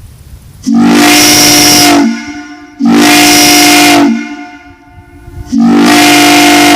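Homemade train whistle blown on compressed air, giving three loud blasts of about a second and a half each. Each blast sounds a chord of several steady tones, scoops up slightly in pitch as it starts, and rings on briefly after the air cuts off.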